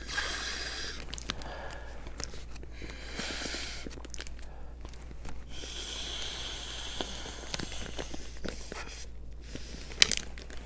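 Air being sucked out of a zipper plastic bag through a drinking straw: breathy sucking hiss in several draws, with the plastic bag crinkling. A couple of sharp clicks come near the end.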